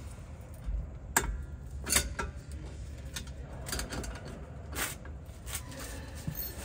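Hand tools clinking and knocking against brake parts: a scatter of short sharp clicks, the loudest about a second in, at two seconds and near five seconds, over a steady low rumble.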